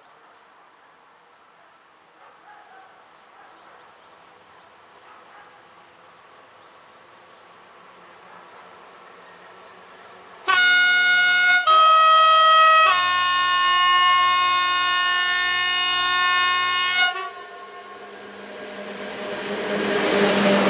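Electric freight locomotive's air horn sounding the Rp1 'attention' warning signal: a short note, a short note at a different pitch, then a held blast of about four seconds that cuts off sharply. After it, the rumble of the heavy train with its loaded cement hopper wagons grows louder as it draws near and passes.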